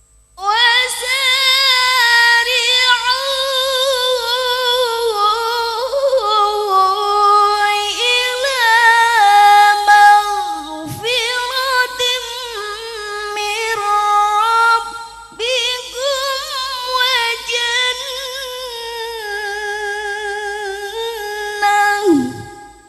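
A single reciter chanting the Quran in melodic tilawah style: long, high, ornamented held notes, with breaths about 11 and 15 seconds in, ending on a falling note.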